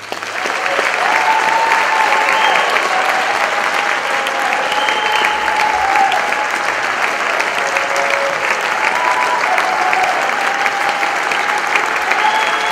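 Concert-hall audience applause: dense, steady clapping that swells up in the first second as the band's final chord dies away, with a few held calls from the crowd over it.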